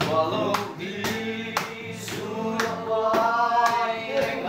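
Several male voices singing together to a strummed acoustic guitar, with a steady beat about twice a second.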